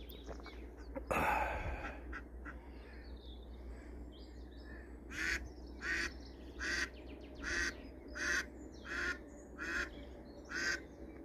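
A live decoy duck quacking in a long, evenly paced series, about one quack every three-quarters of a second, starting about five seconds in. A single louder call comes about a second in.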